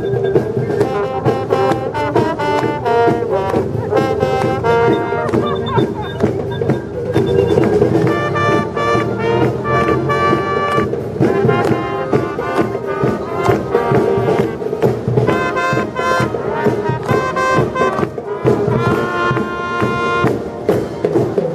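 Youth brass band of trumpets, trombones and a low brass horn playing a tune, with held notes over a steady low accompaniment.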